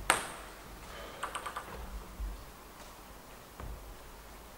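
Table tennis ball clicking between rallies: one sharp click just after the start, then a quick run of light ticks about a second in and a few scattered ticks after, as the ball is bounced ahead of a serve.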